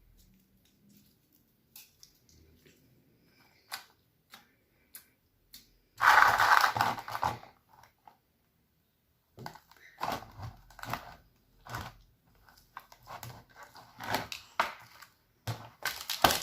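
Slime being handled and mixed by hand: a few faint clicks, then a loud squishing burst about six seconds in, followed by a run of shorter squishes from about ten seconds on.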